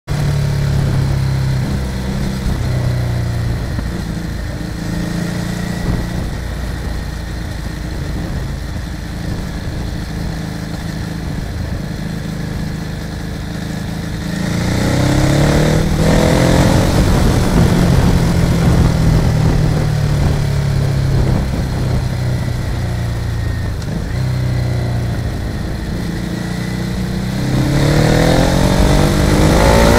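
Motorcycle engine running while riding, with road and wind noise. About halfway through and again near the end it accelerates, the revs rising and dropping back several times as it shifts up through the gears.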